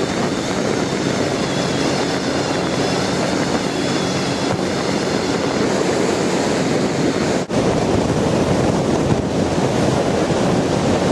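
Motorboat under way: a steady engine drone mixed with water rushing past the hull and wind buffeting the microphone. The sound drops out for an instant about seven seconds in.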